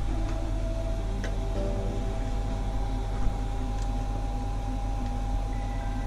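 Steady machine hum with a low drone and several fixed tones, like a room fan or extractor running, with a few light clicks, the sharpest about three seconds in.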